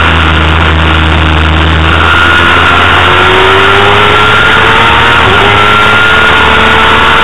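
Honda CBR250RR's inline-four engine revving high under race acceleration, its pitch climbing slowly and dipping briefly at a gear change about five seconds in before climbing again, over heavy wind rumble on the onboard microphone.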